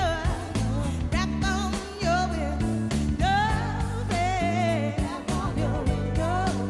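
Live soul band performance: a female lead vocal with wide vibrato sings held, sliding notes over bass, drums and keyboards/guitar.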